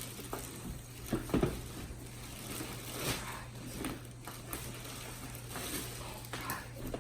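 Cardboard and plastic packaging being handled and pulled off a boxed car seat: crinkling and rustling with a few knocks, the loudest about a second and a half in.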